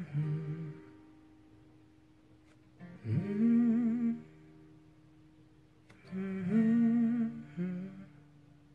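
A man humming a melody in three short phrases, the notes wavering with vibrato, over acoustic guitar chords left ringing underneath.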